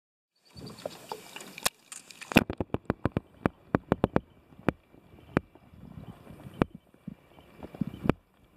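Muffled sound picked up by a camera held underwater in a lake: a string of sharp clicks and knocks, rapid about two seconds in and then roughly one a second, over a faint steady high tone.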